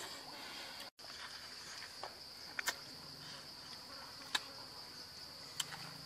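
Steady high-pitched insect chirring from the surrounding forest, with a few sharp clicks over it; the sound cuts out completely for a moment about a second in.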